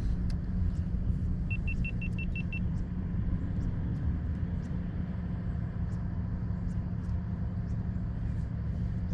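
Boat motor running with a steady low rumble, and a quick run of seven short, high electronic beeps about a second and a half in.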